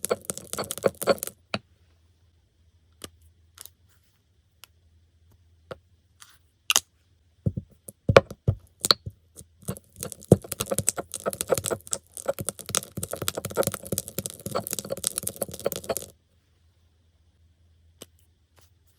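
Slime being kneaded and stretched by hand, a dense run of small sticky clicks and crackles. It comes in two stretches, a short one at the start and a longer one from about ten seconds in, with a few scattered clicks in between and quiet near the end.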